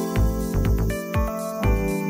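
Instrumental background music: held melodic notes over a regularly pulsing bass.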